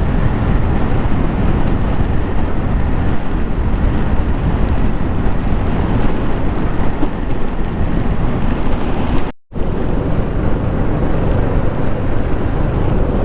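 Steady wind and rain noise on a motorcycle rider's microphone at riding speed in a heavy monsoon downpour: a low, drumming rush with engine and tyre noise mixed in. The rider calls it 'dubu dubu dubu' and can't place it, thinking of thunder. It cuts out for a moment about nine seconds in.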